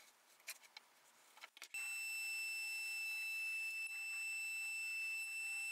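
Benchtop drill press fitted with a Forstner bit starting up about two seconds in and then running with a steady high-pitched whine. Before that there are only a few faint scratches of a pencil marking MDF.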